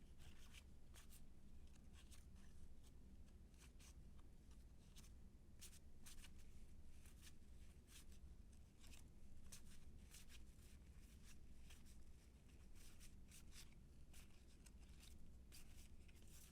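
Faint, irregular soft clicks of cardboard baseball cards being flipped through by hand, one after another, over a low steady hum.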